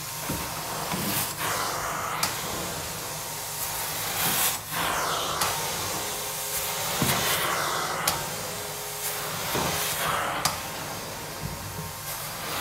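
Carpet steam-cleaning extraction wand spraying and sucking water from carpet: a steady, loud hissing rush of vacuum suction that swells and dips as the wand is stroked across the carpet, with a few sharp clicks.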